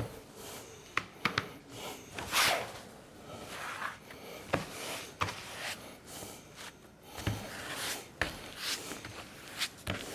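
Wide wooden-backed brush scrubbing glue across a wooden panel in irregular rubbing strokes, with a few sharp clicks and knocks as the glue bottle and brush are handled.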